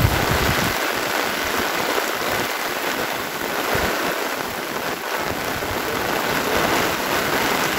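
Heavy rain pouring down together with the rush of a flooded river, heard as a steady, even hiss.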